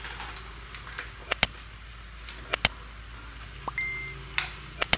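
Sharp clicks and taps of hands handling tools and the laptop's metal case on a workbench, several coming in quick pairs, with a brief high steady tone a little before the end.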